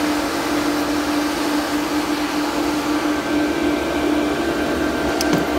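Many Antminer S9 Bitcoin miners' cooling fans running together, a loud steady whir with a constant hum tone through it. A couple of light clicks near the end.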